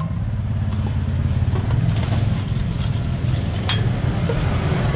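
A motor running at idle, a steady low rumble, with a sharp click about three and a half seconds in.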